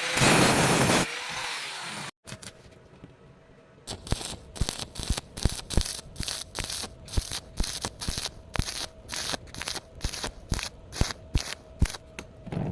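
Short scraping strokes on metal, about two to three a second, over a faint steady hum. Before them, near the start, a loud steady rushing noise runs for a second or two and cuts off.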